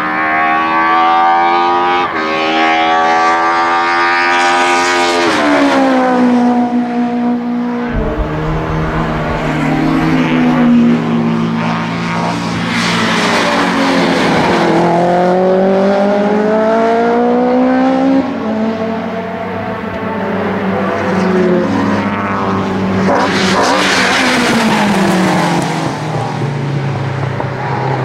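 BMW E30 M3 DTM race cars' four-cylinder engines at high revs. The pitch climbs under acceleration, breaks at upshifts, and drops as cars lift and pass.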